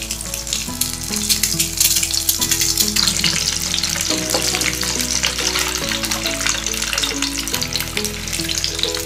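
Boiled eggs sizzling in hot oil in a frying pan, a steady hiss with fine crackles, with background music playing under it.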